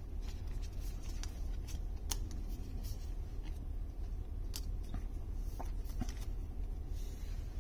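Trading cards being handled and slid into a clear plastic sleeve: light rustling and a few separate sharp ticks of card and plastic.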